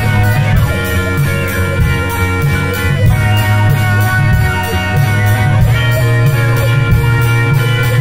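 Instrumental passage of a chillwave electronic song: held chords over a steady deep bass line and a quick, evenly ticking beat.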